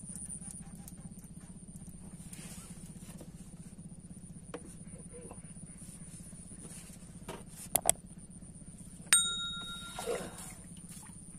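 A single bright metallic ding about nine seconds in, ringing on briefly like a small bell, with two sharp clicks a second before it. A short splashy rustle follows as a fish is brought into a landing net, over a steady faint high whine and low hum.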